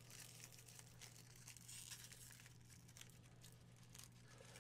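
Crinkling of a Lindor truffle's twist wrapper being unwrapped by hand, a dense crackle that thins out to a few scattered crackles near the end.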